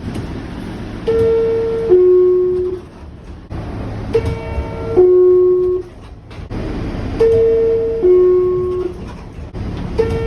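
New York City subway R62A car's door chime sounding its two-note descending ding-dong three times, about every three seconds, with a fourth starting near the end, over the steady noise of the car. It is the warning that the doors are about to close.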